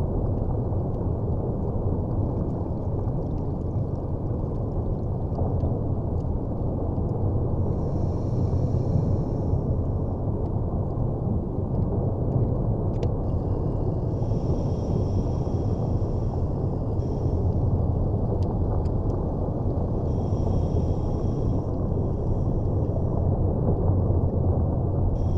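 Underwater ambience: a steady low rumble of water, with faint higher hisses coming and going every few seconds.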